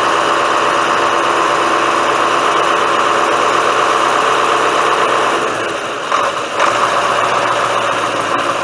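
Truck-mounted crane's engine running steadily while it hoists a stone load. The engine note dips briefly about six seconds in, then picks up again.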